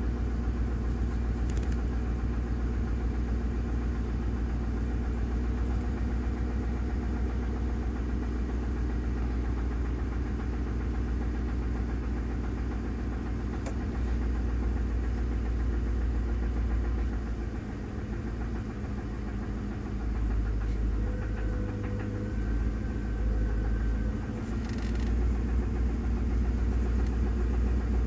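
Ford 5.4L Triton V8 idling steadily, with a knocking noise from the engine that the owner is trying to diagnose and wonders may be rod knock.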